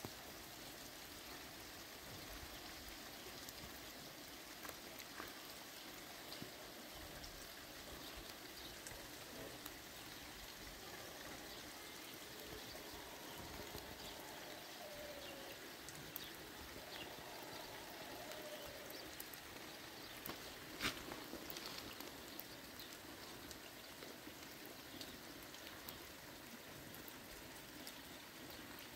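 Light rain falling steadily on a muddy yard and its puddles, with scattered drop ticks and one sharper tick about three quarters of the way through. Faint short animal calls come through in the middle.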